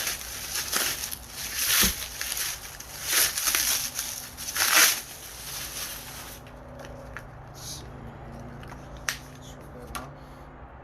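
Packaging wrap being pulled and torn off bike parts: a run of crinkling, tearing rustles for about the first six seconds, then a few light clicks.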